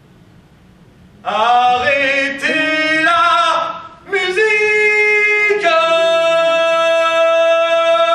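A man singing loudly: about a second in he launches into a phrase whose notes shift and waver, breaks off briefly, then sings a long held final note.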